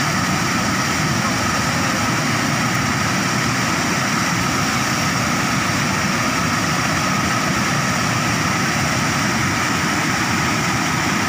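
Muddy floodwater pouring over a concrete spillway: a loud, steady, unbroken rush of water.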